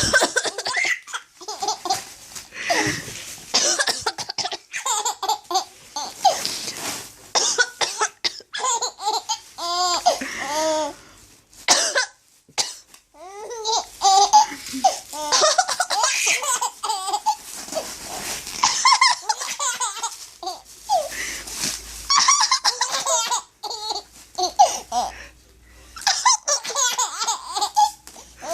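A baby laughing hysterically in repeated fits of belly laughs and giggles, set off again and again by an adult's short fake coughs.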